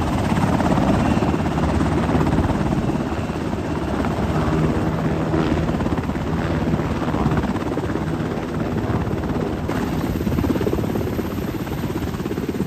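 MH-60R Sea Hawk helicopter hovering low overhead: a loud, steady drone of its main rotor and twin turboshaft engines, with a rapid even rotor beat.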